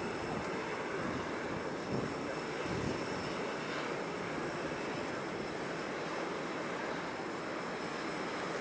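Airbus A319 jet airliner's engines running as it rolls along the runway after landing: a steady rushing noise with a faint high whine.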